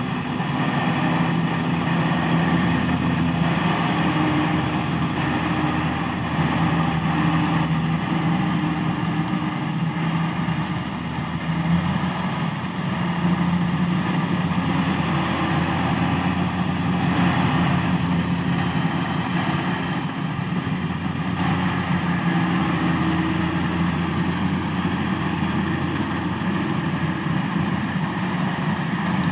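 Kubota DC70 combine harvester's diesel engine running steadily under a continuous mechanical clatter from the machine. The engine note shifts slightly about twelve seconds in.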